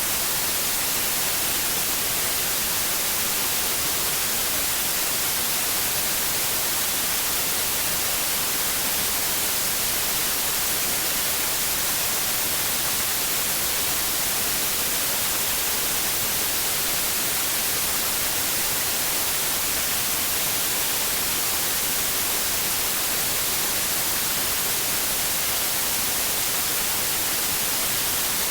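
Steady white noise: an even, unchanging hiss, brightest in the high frequencies, played as a sleep aid for babies.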